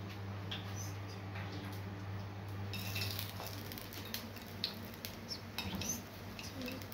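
Metal spoon tapping and scraping against a small aluminium frying pan as falafel patties fry in oil, in short scattered clinks that come more often in the second half, over a steady low hum.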